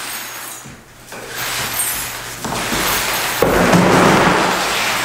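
Broom bristles sweeping plaster chips and grit across a hardwood floor, a scratchy brushing that grows louder and fuller from about halfway through.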